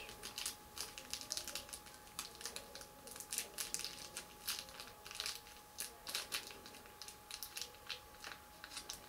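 Plastic packaging crinkling and crackling in the hands, in many short, irregular crackles, as a small metal fingerboard wheel is taken out of its wrapping.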